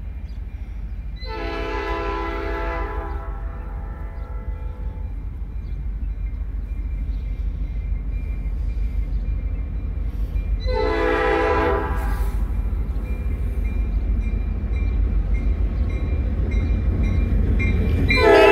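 Diesel freight locomotive horn blowing for the grade crossing as the train approaches: a long blast of about four seconds, a shorter one of about a second and a half near the middle, and another starting just before the end. Beneath the horn, the locomotive's low engine rumble grows steadily louder as it nears.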